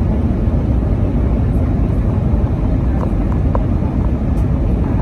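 Steady low rumble of an Airbus A319's IAE V2500 turbofans and rushing airflow, heard inside the cabin at a window seat during the descent to landing. A few faint clicks come about three seconds in.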